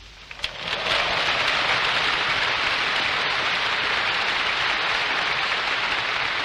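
Large crowd applauding on an old speech recording, a dense even clatter that builds about half a second in and then holds steady.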